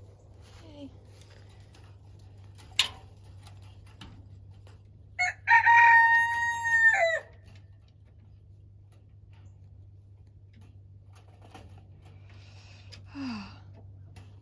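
Bantam rooster crowing once, a loud call held about two seconds that drops in pitch at the end. A sharp click comes shortly before it, and a shorter, weaker call near the end.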